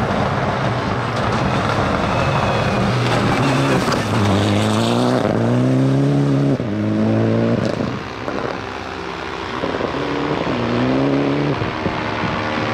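Rally car engine at high revs, its pitch climbing and dropping in quick upshifts through the middle, easing off briefly, then pulling up again near the end. A steady haze of tyre and gravel noise runs underneath.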